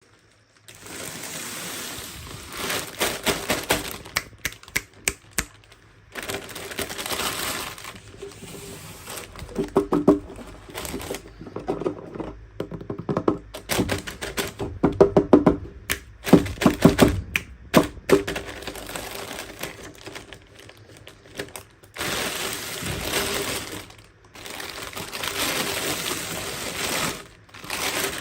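Toy packaging and small plastic pieces being handled during an unboxing: stretches of crinkling, rustling wrapper alternate with runs of quick sharp clicks and knocks of hard plastic, busiest in the middle.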